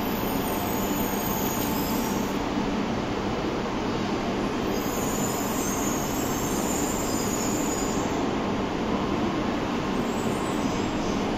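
Shinkansen high-speed train moving along the station platform: a steady, even rushing noise that holds unchanged.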